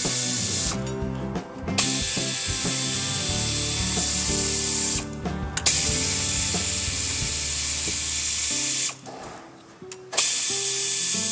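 Air ratchet running in spurts of a few seconds as it spins a bracket bolt loose. It stops briefly about a second in, again about five seconds in, and for about a second near the end.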